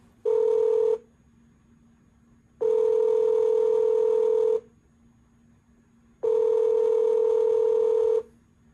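Telephone ringback tone of an outgoing call: three steady rings at one low pitch, the first short and the next two about two seconds each, with shorter quiet gaps between them.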